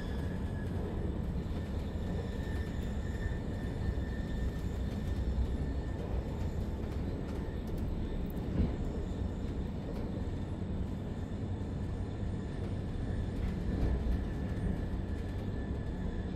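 Steady rumble of a Zürich S-Bahn DPZ double-deck train hauled by an Re 450 locomotive, running on the line and heard from inside a passenger coach, with a couple of faint clicks.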